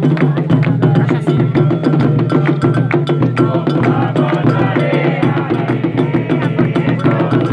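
Candomblé ritual percussion: drums and a wooden or bell-like percussion instrument played in a fast, dense, driving rhythm.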